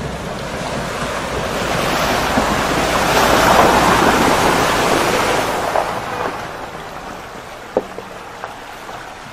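Mahindra Thar wading through a shallow river crossing close by: water splashing and rushing around its wheels swells to a peak about three to four seconds in, then fades as it moves away.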